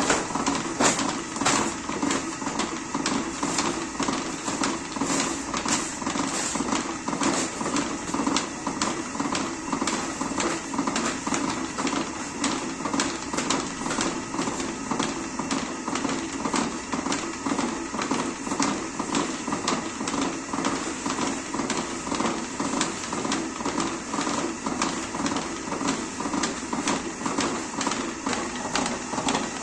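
Spoked potter's wheel spinning under a pot being thrown, with a steady hum and a regular clacking.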